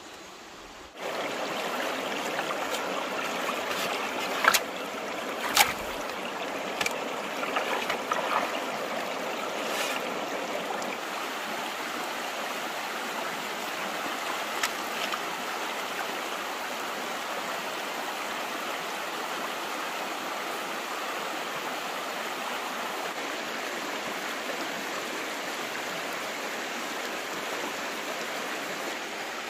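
Stream water running with a steady rushing sound that starts abruptly about a second in. A few sharp clicks or knocks sound over it in the first fifteen seconds.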